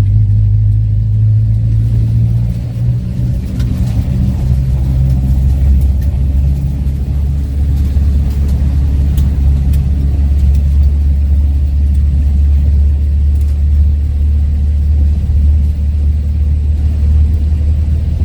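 Renault automatic car's engine running steadily; its note drops in pitch about three seconds in, then holds a steady low drone.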